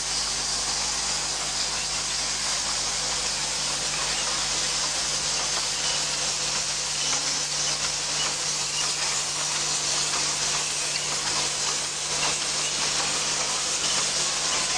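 Steady hiss and hum of an automatic syringe assembly machine running, its vibratory bowl feeders and mechanisms going, with faint rapid clicking of small plastic parts throughout.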